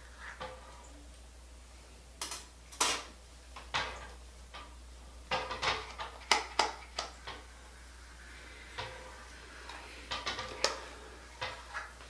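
Scattered light clicks and clacks, a dozen or so at irregular intervals, from a hair flat iron being handled as its plates open and close on sections of hair.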